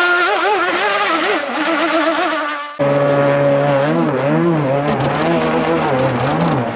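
Scale RC racing hydroplane running at speed across the water, its motor buzzing with a pitch that wavers up and down. About three seconds in, the sound cuts abruptly to another high-speed run with a lower buzz.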